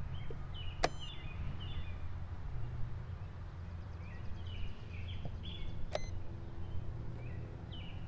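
Two sharp clicks from the blitz chess game, about a second in and again about six seconds in, over small birds chirping on and off and a steady low rumble.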